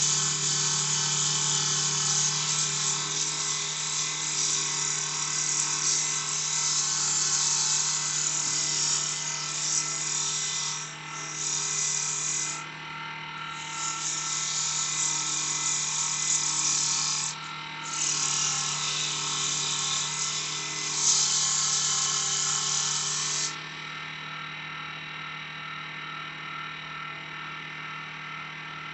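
Wood lathe running with a steady motor hum while sandpaper is pressed against the spinning cedar workpiece, giving a hiss that breaks off briefly a few times and stops about three quarters of the way through, leaving the lathe humming on its own.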